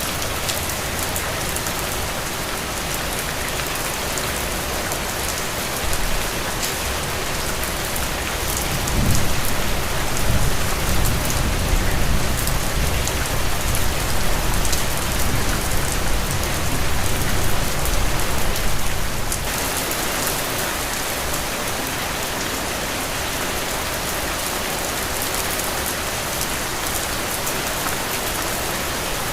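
Heavy rain falling steadily, with a low rumble of thunder that builds about a fifth of the way in, rolls on for about ten seconds, and stops about two-thirds of the way through.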